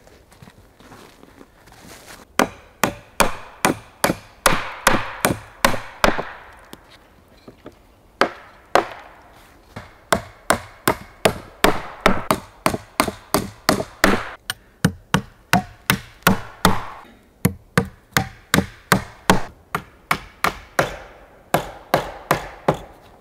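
Hand tools striking a wooden plank on a sawhorse: runs of sharp wooden knocks, about three a second, with short pauses between runs.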